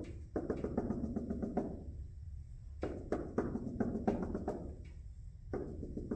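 Dry-erase marker tapping and scratching on a whiteboard as points are marked on a graph: three bursts of rapid clicks, each a second or two long.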